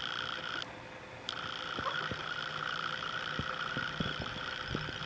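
A steady, high trilling call from an animal cuts off about half a second in and starts again abruptly about a second later. Under it come a few soft, irregular steps on dry leaves and grass.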